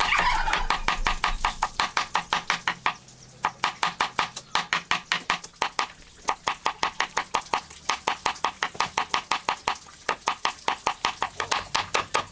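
Rapid, even knocking, about five knocks a second, in runs with short pauses about three, six and ten seconds in.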